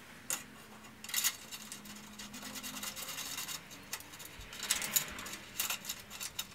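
Scattered small metallic clicks and scrapes as a thin aluminum cooling-panel piece is set in place and its clips and bolts are handled.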